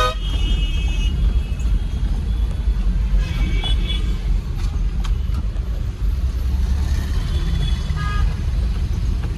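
Steady low rumble of a truck's engine and road noise while driving in city traffic, with brief higher tones twice.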